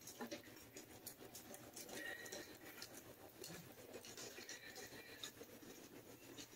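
Faint scratching and brushing of a small brush spreading glue over the wooden guitar body, with light clicks and taps as it works along the edge.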